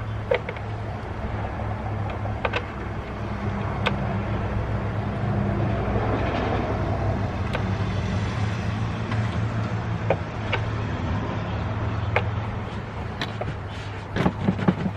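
A steady low engine hum runs throughout, broken by a dozen or so sharp, isolated metallic clicks and clinks of hand tools and parts being handled during reassembly.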